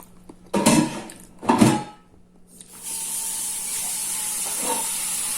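Two brief loud knocks or clatters, then a kitchen tap turned on about three seconds in, with water running steadily into the sink.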